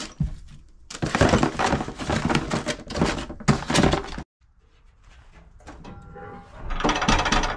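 A cardboard box with plastic-bagged parts inside being handled and its flaps folded shut on a counter: dense rustling and scraping with small knocks. It cuts off suddenly, and near the end comes another short burst of rustling noise.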